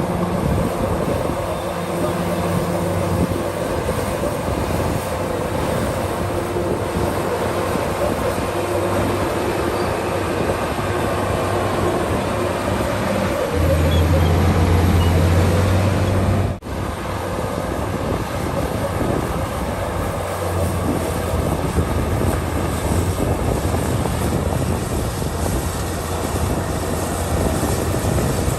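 Komatsu D65PX bulldozer's diesel engine running steadily, louder for about three seconds near the middle, with a sudden brief dropout a little past halfway.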